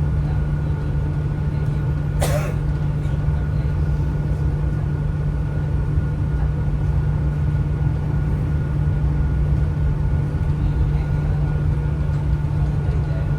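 Rodalies commuter train running: a steady low rumble with a faint steady whine above it, and one brief sharp noise about two seconds in.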